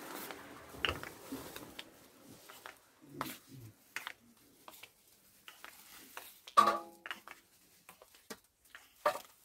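Scattered light clicks and knocks of things being handled and moved, with one sharper, louder clatter about two-thirds of the way through.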